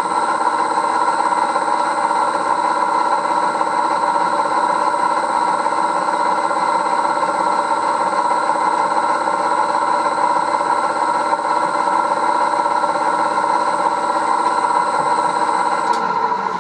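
1938 Bridgeport M-head milling machine's spindle motor running at a steady pitch while a 1/8-inch reamer is fed into a cylinder block. Near the end a click, and the motor begins to slow down as it is switched off.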